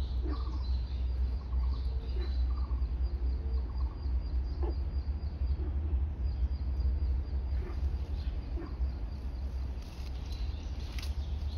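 Outdoor forest ambience: scattered short bird calls over a steady low rumble, with a thin high steady whine that breaks off briefly about halfway through.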